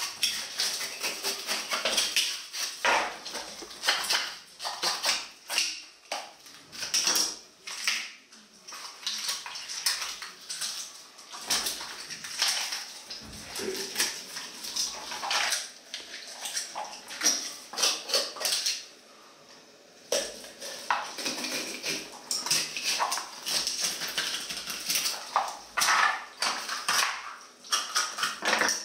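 Clatter of kitchen utensils and cookware: many short, irregular knocks and clinks, with a brief lull about two-thirds of the way through.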